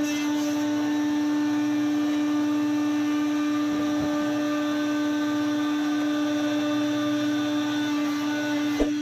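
Sawmill machinery running with a steady, even whine, one held pitch with overtones, and a short click near the end.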